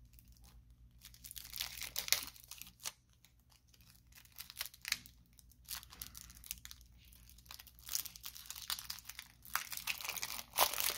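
Plastic shrink-wrap on a sealed deck of trading cards crinkling and tearing as fingers peel it away, in irregular crackly bursts with short pauses between them.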